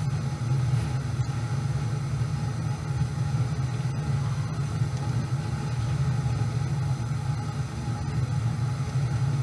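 Steady low background rumble, like a machine or ventilation hum, unchanging throughout with no distinct events.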